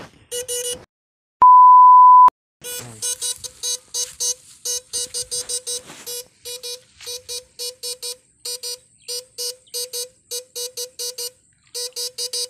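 Short electronic beeps at one unchanging pitch, repeating unevenly about three times a second. Before them, about a second and a half in, comes a single long, loud steady beep lasting nearly a second.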